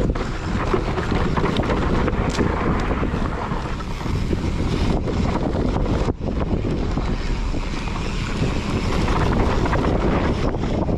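Wind buffeting the action camera's microphone as a mountain bike rolls fast down a dirt singletrack, a loud, steady rushing.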